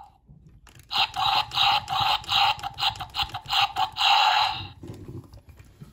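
Electronic dinosaur sound effect from a Jurassic World Dominion Therizinosaurus toy figure's built-in speaker: a rapid pulsing call, about four pulses a second, starting about a second in and stopping near the end.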